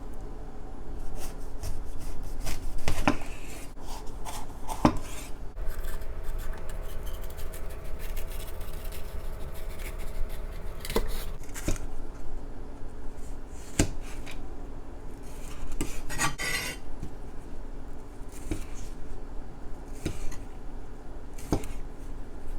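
A kitchen knife cutting up a red bell pepper on a cutting board: irregular knocks and taps of the blade against the board, spaced a second or more apart, with some rubbing and handling between them.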